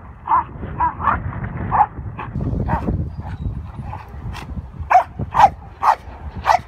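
A Belgian Malinois giving short high yips, then barking sharply at a decoy's bite sleeve from about four seconds in, about two barks a second, in the excitement of protection work.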